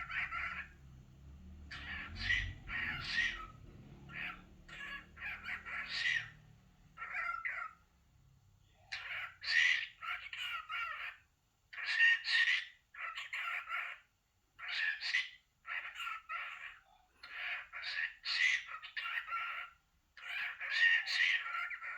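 Cockatiel chattering: clusters of short, rapid chirping syllables in quick runs, with a brief pause about eight seconds in.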